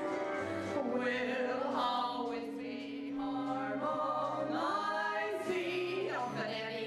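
Women singing a musical-theatre duet over a steady instrumental accompaniment, with long held sung notes.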